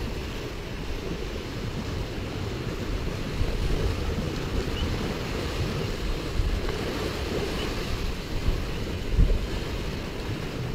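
Wind buffeting the microphone over the steady rush and slap of choppy sea water while under sail.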